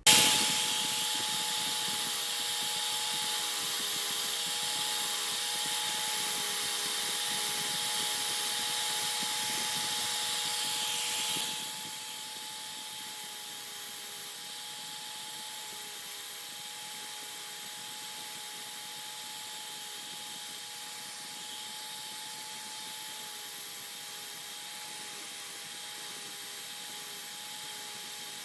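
Electric Milwaukee sander fitted with a Scotch-Brite buffing pad, running with a steady whine and hiss. It is louder at first and drops noticeably in level about eleven seconds in, then runs on steadily.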